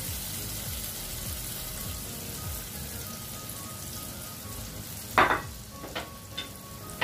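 Chicken roast sizzling in its thick bubbling sauce in a hot frying pan as it is spooned out, with a steady frying hiss. About five seconds in come a few sharp clinks of the serving spoon and plate.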